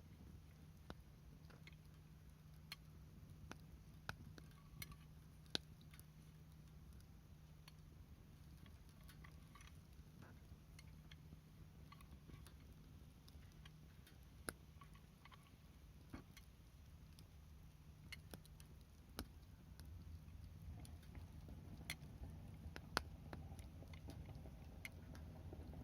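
Wood fire crackling faintly in a folding fire pit, with scattered sharp pops at irregular intervals over a low steady rumble that grows a little louder near the end.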